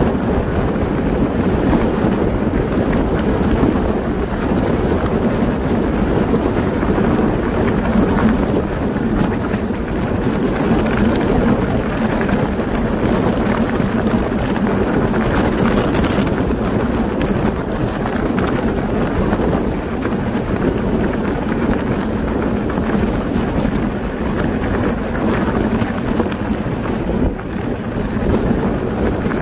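Wind buffeting the microphone while an e-bike rolls over a loose gravel track: a steady rumble of tyres on stones, with many small clicks and rattles from the gravel and the bike.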